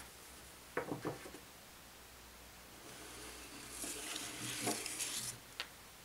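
Picture card sliding out of a wooden kamishibai frame: a papery rubbing of about two seconds that swells and then stops, followed by a small click. Two soft knocks from handling the frame come about a second in.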